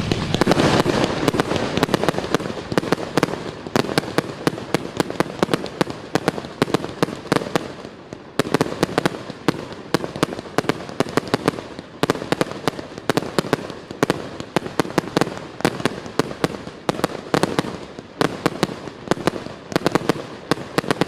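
Fireworks going off in a dense barrage of sharp cracks and pops, several a second, over a continuous crackle.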